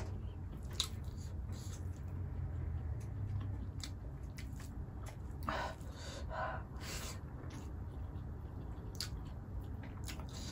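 Close-up eating sounds of a person chewing mouthfuls of rice and pork curry eaten by hand: scattered wet smacks and small clicks, a cluster of them about halfway through, over a steady low hum.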